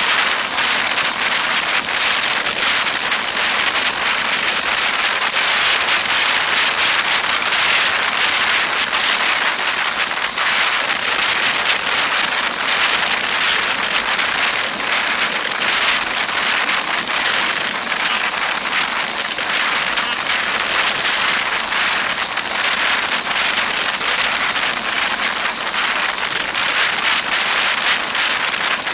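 Steady rushing, crackly noise of a road bike moving at speed: wind over the handlebar-mounted camera and tyres rolling on asphalt.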